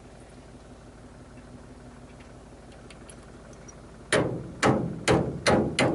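Low steady hum of an idling tractor engine, then, about four seconds in, five loud bangs about half a second apart.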